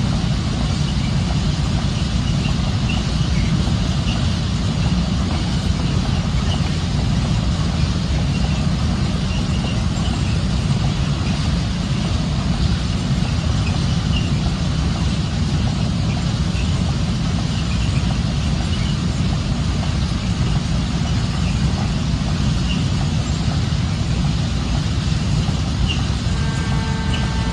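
Loaded container flat wagons of a freight train rolling steadily past, with a continuous low rumble of wheels on rails. A faint steady tone comes in near the end.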